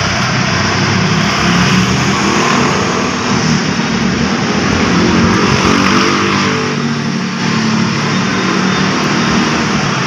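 An engine running steadily, with its pitch shifting up a little around the middle.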